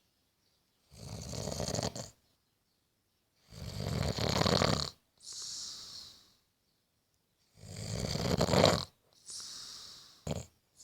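A person snoring heavily in sleep: three loud, rattling snores about three and a half seconds apart, each followed by a softer, hissing breath.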